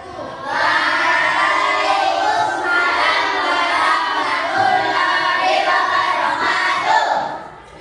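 A class of children singing together, loud, starting about half a second in and stopping shortly before the end.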